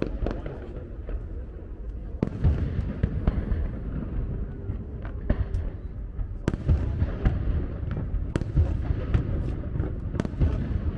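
Fireworks display: a rapid run of bangs and crackling pops over a continuous low rumble of bursts, with sharper reports about two, six and a half and eight and a half seconds in.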